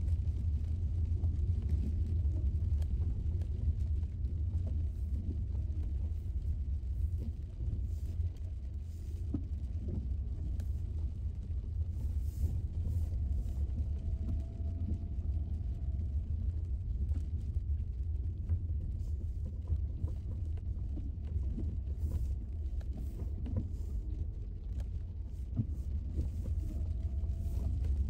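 Car driving slowly over a wet gravel road, heard from inside the cabin: a steady low rumble of tyres and engine, with scattered small irregular ticks and clicks.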